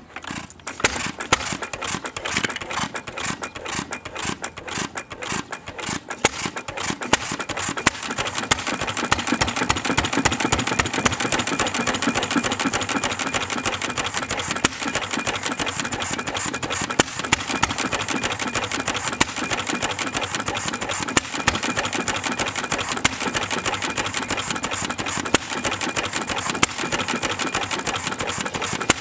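Bamford 3 hp throttle-governed petrol stationary engine catching on a swing of the starting handle and running. The firing beats are uneven for the first several seconds, then settle into steadier running. The owner says it is not running right for a throttle-governed engine and suspects the carburettor settings.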